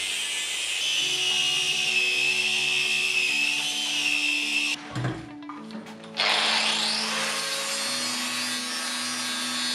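Angle grinder cutting steel flat bar, its motor and disc giving a steady high whine. About five seconds in the whine drops out for roughly a second, then comes back rising in pitch as the disc spins up and runs on. Background music with low held notes plays underneath.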